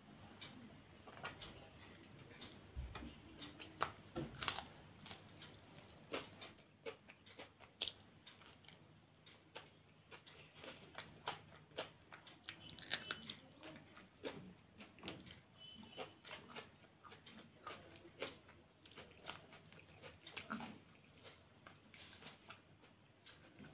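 A person chewing and biting mouthfuls of rice and side dishes eaten by hand, with many small irregular clicks.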